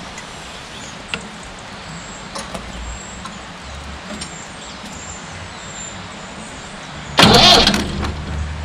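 Fordson Major diesel engine briefly turned over on its starter, a short loud burst about seven seconds in that fades away, inching the engine round to bring the next valve into position for setting the tappet clearance. A few light tool clicks come before it.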